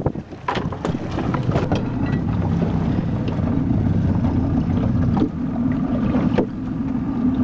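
A fishing boat's motor running steadily, a low drone, with a few light knocks.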